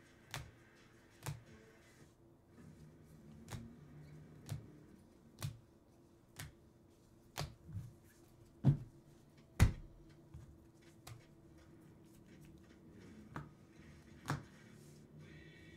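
Sharp clicks and taps of trading cards and plastic top-loaders being handled and set down on a table, about one a second, with two louder knocks a little before the middle.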